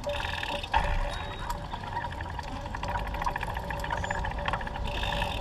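Riding noise from a recumbent trike: steady wind rumble on the microphone, with tyre and drivetrain whir and faint ticking.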